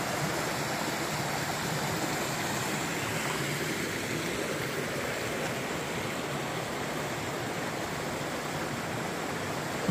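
Shallow, rocky river running over and around boulders: a steady rush of flowing water.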